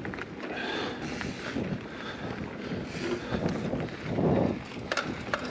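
Hardtail mountain bike ridden over a dirt trail: tyre rumble and rattling knocks, with wind buffeting the microphone and a louder gust or thump about four seconds in.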